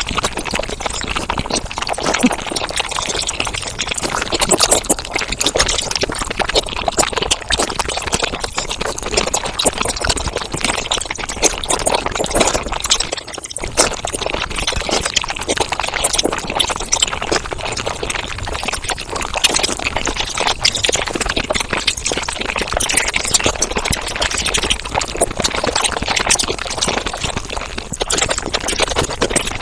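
Mukbang eating sounds sped up to five times normal speed: wet chewing and slurping run together into a dense, continuous crackle, with a brief break a little past the middle.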